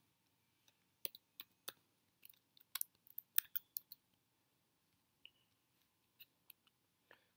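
Typing on a computer keyboard: a quick, irregular run of faint key clicks for about three seconds, then a single click a little later.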